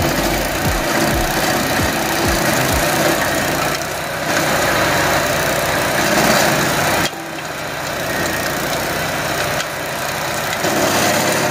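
Stump grinder's gasoline engine running steadily under load as its cutter wheel grinds into a tree stump, a dense mechanical din. There are low thumps in the first few seconds, and the deepest rumble drops away about seven seconds in.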